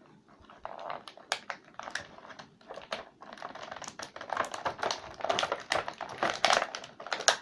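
Toy packaging being opened by hand: plastic and cardboard rustling and crinkling with a rapid scatter of sharp clicks, busier and louder from about four seconds in.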